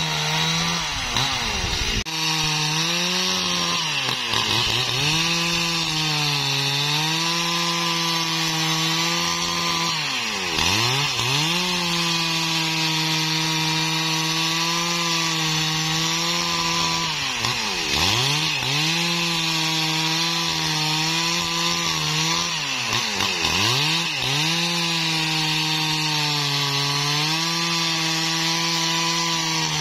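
STIHL MS 382 single-cylinder two-stroke chainsaw running at high revs while cutting through a large felled log. The engine pitch dips sharply and recovers about five times.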